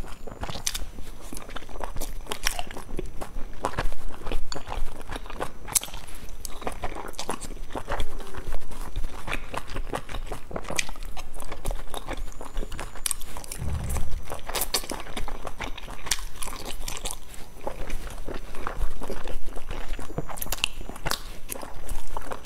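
Close-up mouth sounds of chewing boiled dumplings, wet and smacking, with irregular sharp clicks throughout and a brief low bump about two-thirds of the way through.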